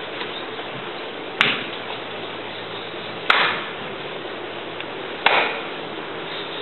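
Three sharp slaps on a wooden floor, evenly spaced about two seconds apart, each ringing out briefly, over a steady hiss.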